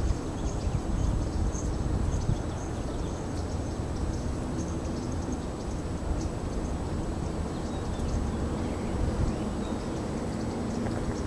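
Outdoor ambience dominated by a steady low rumble of wind on the microphone, with faint scattered high chirps.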